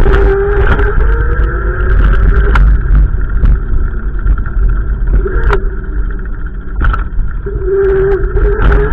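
Gusty wind buffeting the microphone: a loud, constant low rumble, with a wavering tone that comes in at the start and again near the end.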